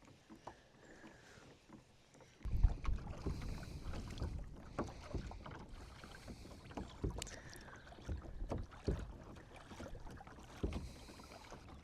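Wind buffeting the microphone in uneven gusts from about two and a half seconds in, with small knocks and water sounds from a kayak on the lake.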